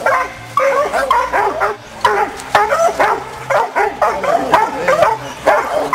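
Pack of hunting dogs baying a cornered ram, a rapid, unbroken run of short barks, several a second, from more than one dog.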